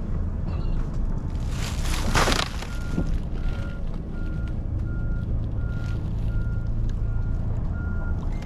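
A heavy vehicle's engine running, with a loud hiss about two seconds in. Then a reversing alarm starts beeping steadily at one pitch, nearly two beeps a second, from about three seconds in.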